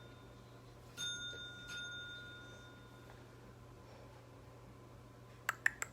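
A single bell ding from a sound-effects keyboard, sounding about a second in and ringing out for about a second. A few sharp clicks follow near the end.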